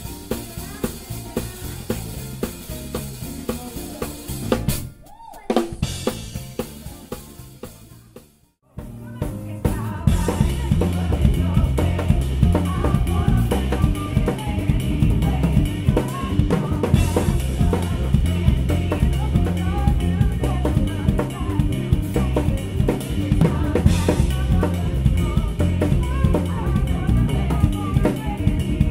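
Drum kit played live: kick and snare groove. About five seconds in it breaks off and trails away to a brief silence. A louder groove then starts, the drums playing with a full band.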